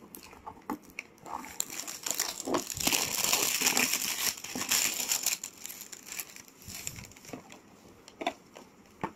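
Plastic wrapping crinkling and rustling as a cardboard product box is unwrapped and handled. The crinkling is loudest for a few seconds in the middle, then gives way to lighter handling clicks and a sharp tap near the end.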